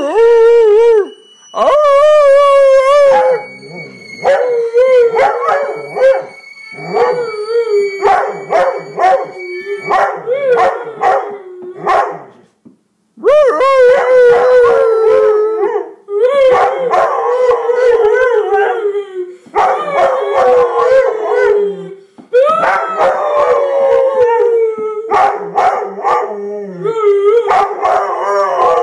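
Airedale terrier howling in long, wavering bouts with short breaks between them, set off by a violin's extremely high sustained note, which sounds as a thin steady tone over the howls in the first third.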